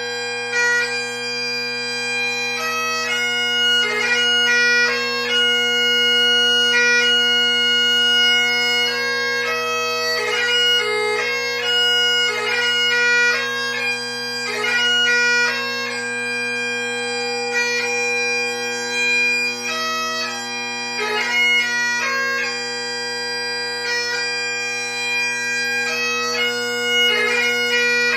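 Great Highland bagpipe playing a piobaireachd lament. Long held chanter notes are broken by quick gracenote flicks over the steady hum of the drones.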